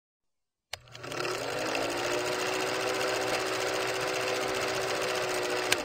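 Old film projector running, a steady mechanical clatter with a motor hum that rises to speed over the first second. It starts with a click after a short silence and ends with another click.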